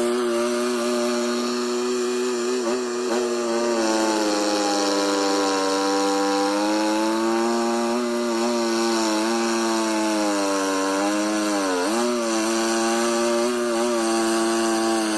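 Mini skid steer loader's engine running fast and steady. Its pitch sags gradually over several seconds and drops sharply once near the end before picking back up, the way an engine dips when it takes on load.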